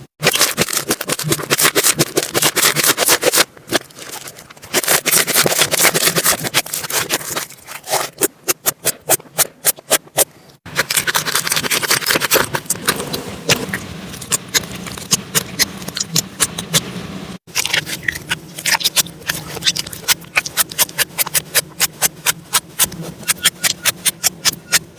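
Slime being squeezed, poked and stretched by hand, making rapid sticky clicks and little air-bubble pops over a crackly squelch. It comes in several short clips, cut off abruptly about three seconds in, again at about ten and a half seconds, and again at about seventeen seconds.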